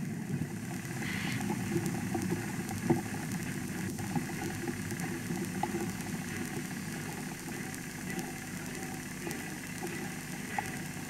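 A steady low mechanical rumble, like a motor running, with a few faint ticks.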